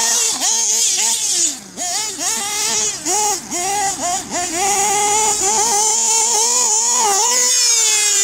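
Small two-stroke nitro engine of an RC buggy, revving hard, with the pitch dropping and climbing back several times as the throttle is chopped and reapplied. About halfway through it is held steady at high revs for a couple of seconds, then eases down near the end.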